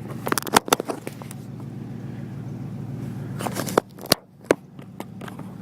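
1987 Ford Mustang GT's 5.0-litre V8 idling steadily, with clicks and knocks of the camera being handled close to the microphone in the first second and again past the middle.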